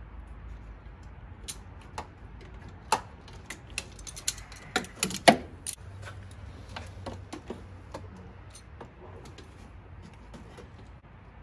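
Irregular metallic clicks and clinks of vice grips and hand tools against metal as locking pliers are worked onto a nut behind an alternator bolt. The clicks come thickest and loudest about halfway through, then thin out.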